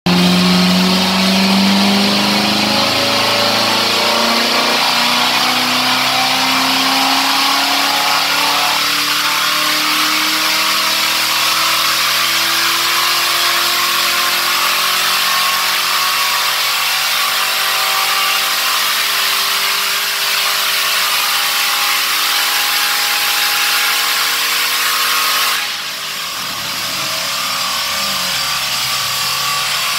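Supercharged 6.2-litre LT5 V8 of a C7 Corvette ZR1 at full throttle on a chassis dyno, its pitch climbing steadily through a long pull. About 26 seconds in the throttle closes suddenly and the revs fall away.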